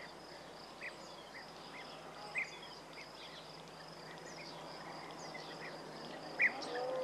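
Outdoor ambience: a steady high-pitched insect drone, with short bird chirps every second or so and a louder chirp near the end.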